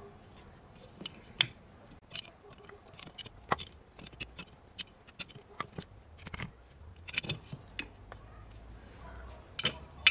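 Pipe wrench clicking and clinking against a brass ball valve and threaded pipe while the valve is screwed on, irregular sharp metal-on-metal clicks, the loudest about a second and a half in.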